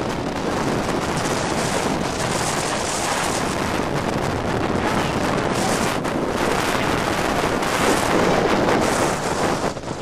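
Strong gusting wind, a gale of at least 40 mph, buffeting the camera microphone as a dense, continuous rush of noise that swells a little near the end.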